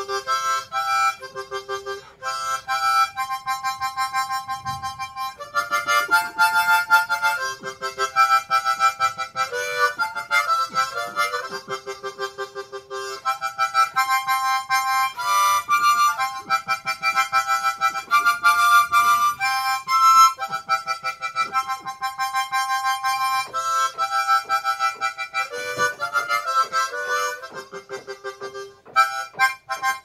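Solo harmonica playing a quick melody of short notes that change rapidly, with a couple of brief pauses.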